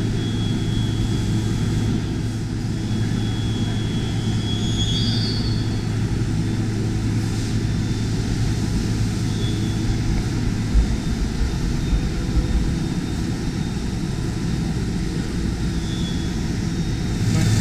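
DMG Mori NHX 6300 horizontal machining centre running a cut behind its enclosure, with coolant spraying: a steady mechanical drone. A low hum under it drops out about ten seconds in and returns near the end, with a few faint knocks in between.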